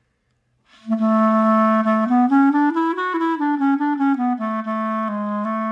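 Clarinet played on a Bacun Vocalise H mouthpiece. About a second in it holds a low note, then plays a phrase that climbs stepwise and comes back down to a long held low note.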